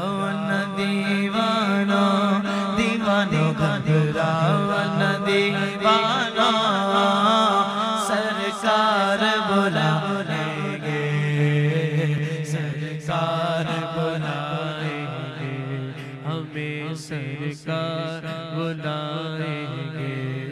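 Male voices singing a naat into microphones: a long, ornamented melodic line without clear words, sung over a steady low drone.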